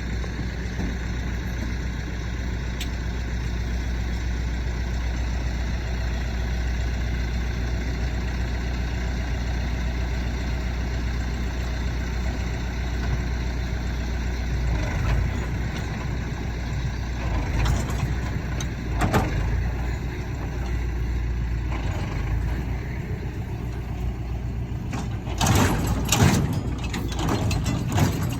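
Tractor engine running steadily while driving a New Holland 575 small square baler that has just been engaged. A few sharp knocks and clatters sound midway, and a louder cluster of clatters comes near the end.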